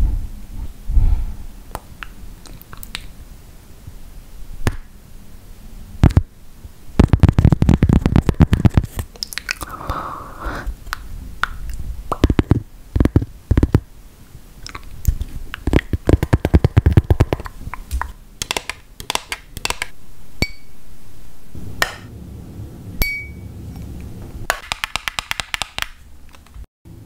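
Fingernails and fingertips tapping and scratching close to the microphone: sharp clicks, quick flurries of taps, scratchy passages and a few light clinks, with low rumbles between them.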